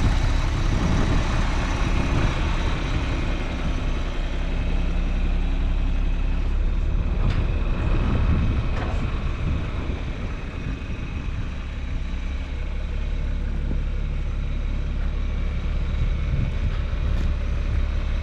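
A heavy vehicle engine running steadily, with two short metallic knocks about seven and nine seconds in.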